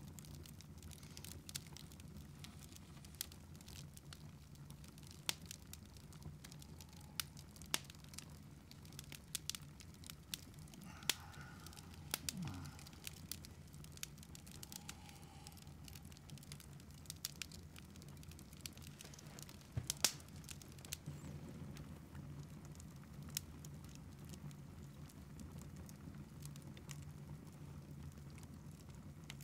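Wood fire crackling in a fireplace: scattered snaps and pops over a low steady hum.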